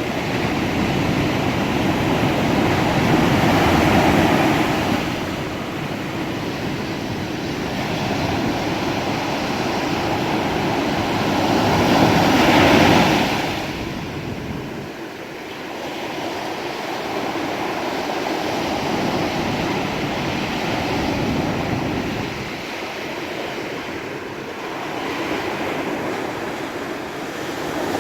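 Ocean waves breaking and washing on the shore. It is a steady rushing surf that swells louder twice, about four seconds in and again around twelve seconds, and eases off between.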